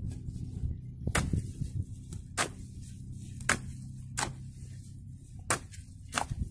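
A hoe striking and turning a heap of damp clay and earth being mixed into brick mud: about six sharp strikes, roughly a second apart, over a low steady hum.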